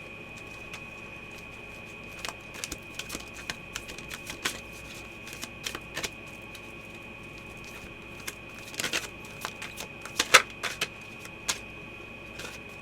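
Tarot cards being handled and drawn from the deck: irregular light clicks, flicks and slaps of card stock on a table, with a couple of sharper snaps about nine and ten seconds in. A faint steady high-pitched whine runs underneath.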